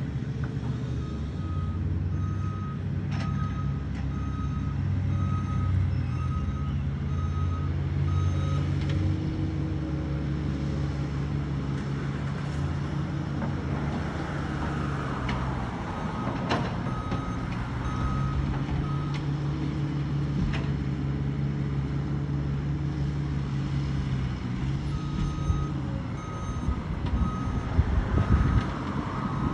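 Diesel engine of a construction machine running and changing load, with a backup alarm beeping about twice a second in three spells: early on for several seconds, again about halfway through, and again near the end.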